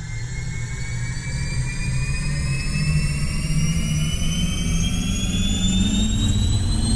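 Spacecraft flight sound effect: a deep engine rumble with a thin whine that rises slowly in pitch, growing louder over the first three seconds and then holding steady.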